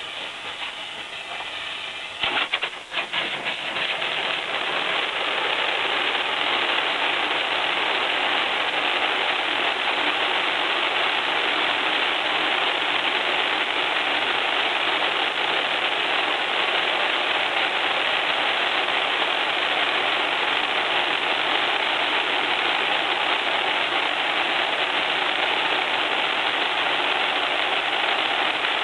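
Firework fountain burning with a steady, loud hiss. It catches with a few sharp crackles about two to three seconds in.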